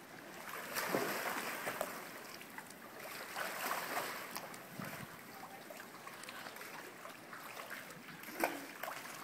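Pool water splashing and sloshing as a swimmer tumbles forward through somersaults, with louder surges about a second in and again near four seconds. A sharp slap near the end.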